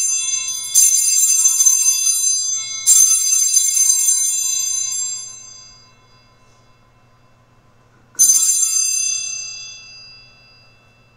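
Altar bells rung at the elevation of the consecrated host: high-pitched jingling peals, one already ringing, fresh strokes about a second and three seconds in, then after a pause one more peal about eight seconds in, each fading away over a couple of seconds.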